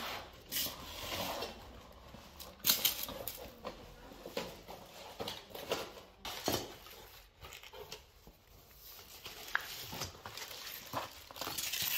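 Cardboard box flaps being opened and plastic-wrapped lamp-arc sections being handled: irregular rustling and scraping of cardboard and plastic wrap, with a sharper scrape about three seconds in.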